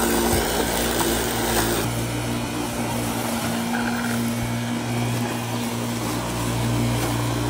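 Corded electric lawn mower running steadily while cutting grass, its motor giving an even, unchanging tone.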